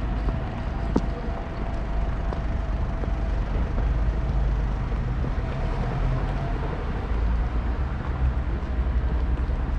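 Busy urban ambience: a steady low rumble of vehicles, with a faint sharp tick about a second in.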